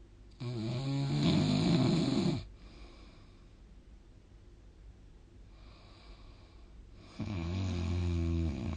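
A sleeping person snoring: two long, loud snores with a low buzzing pitch, each lasting about one and a half to two seconds and about five seconds apart. A faint breath comes between them.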